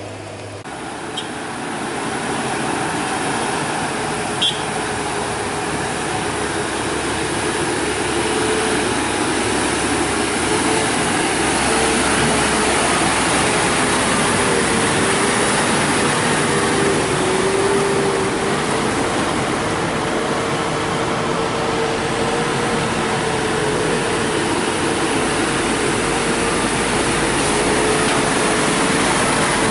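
Heavy truck engine running steadily under load on a steep climb, with a whine that wavers slightly in pitch. It grows louder over the first two seconds, with two faint clicks early on.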